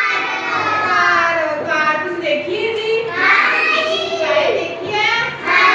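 A child's high-pitched voice speaking in a sing-song, chant-like way.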